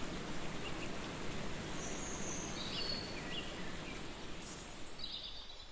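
Outdoor nature ambience: a steady hiss with small birds chirping, several short, high, downward chirps from about two seconds in.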